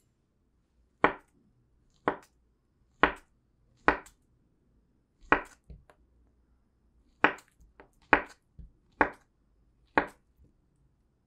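A chef's knife slicing a peeled banana into rounds on a wooden cutting board: about nine sharp knocks of the blade meeting the board, roughly one a second, with a couple of short pauses.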